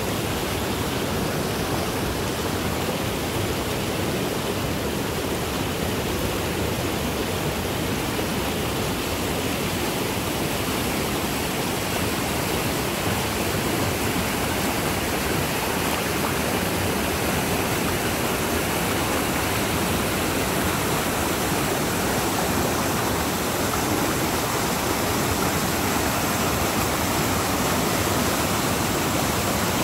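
Rain-swollen creek rushing over rapids: a steady, full rushing of water.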